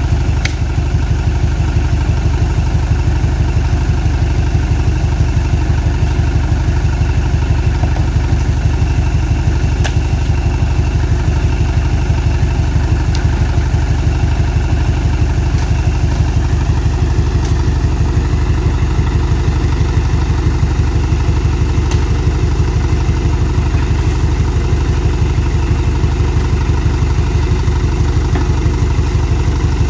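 Light flatbed truck's engine idling steadily, with a few faint knocks over it.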